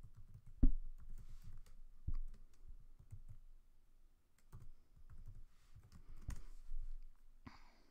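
Computer keyboard keys being typed: scattered, irregular soft clicks with a louder knock about half a second in.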